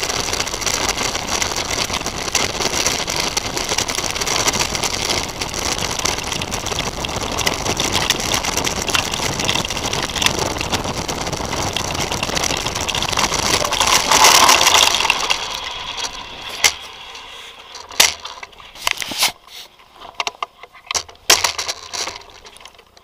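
Mountain bike rolling fast over a dirt and gravel trail: steady tyre and wind noise on the handlebar action camera, swelling briefly about two thirds through, then dying away as the bike comes to a stop. A few sharp clicks and knocks follow.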